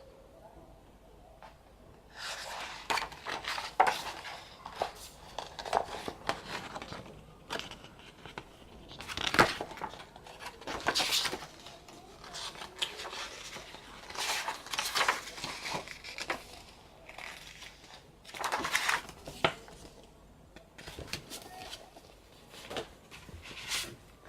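Paper album contents being handled, with irregular rustles, soft taps and clicks as photobook pages are turned and items are moved about. The handling starts about two seconds in.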